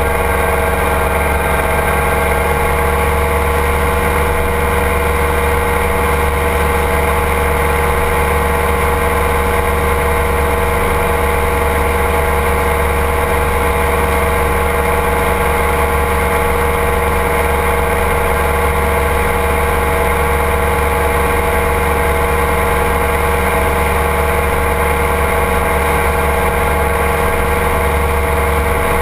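Ultralight trike's engine and pusher propeller running at a steady cruise setting in flight, a constant drone that holds one pitch throughout.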